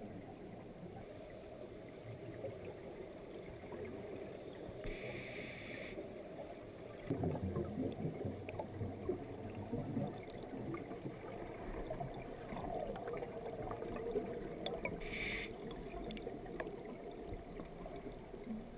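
Scuba diver breathing through a regulator, heard underwater through the camera housing: two short hisses of inhaled air, and a burst of exhaled bubbles rumbling for about three seconds, starting about seven seconds in, over a steady low underwater hiss.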